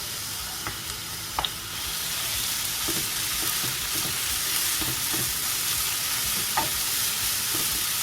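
Vegetables sizzling in hot oil in a frying pan while being stirred, with a few light knocks of the utensil against the pan. The sizzle grows louder about two seconds in.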